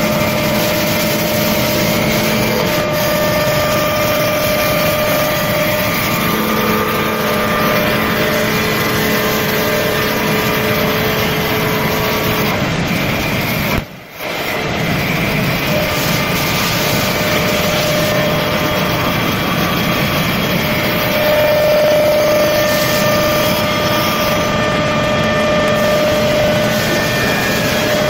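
Automatic CNC wood-turning lathe running, its motors whining at several steady pitches that come and go over a loud noise of wood being cut and sanded. The sound drops out briefly about halfway through.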